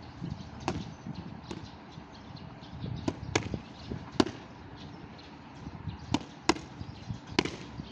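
Boxing gloves striking focus mitts: about eight sharp slaps at irregular intervals, some single and some in quick pairs.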